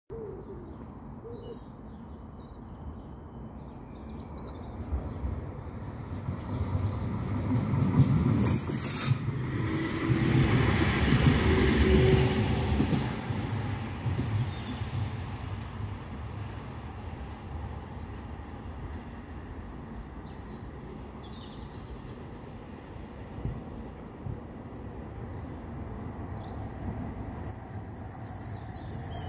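A CAF Urbos 3 tram passing on ballasted track: a low rumble of wheels on rail builds to its loudest about eight to twelve seconds in, with a brief high hiss near its start and short tones from the running gear, then fades as the tram moves away. Small birds chirp throughout, and near the end a second tram can be heard approaching.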